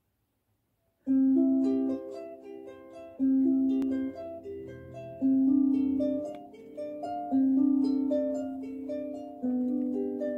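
Background music: a gentle plucked-string tune of separate ringing notes, with a stronger low note about every two seconds. It starts about a second in, after near silence.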